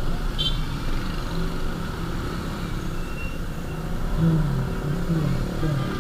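Road noise and engine sound while riding a motorcycle in traffic. A steady rumble runs throughout, and an engine note wavers up and down in pitch over the last two seconds.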